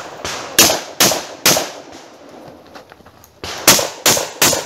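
Derya MK12 semi-automatic 12-gauge shotgun firing two quick strings of three shots each, about half a second between shots, with a pause of about two seconds between the strings.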